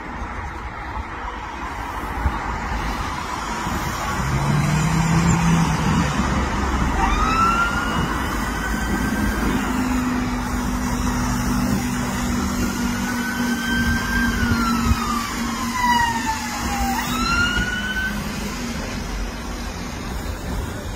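Emergency vehicle siren wailing in slow rising and falling sweeps, starting about a third of the way in and stopping shortly before the end, over steady road traffic and the engines of passing cars.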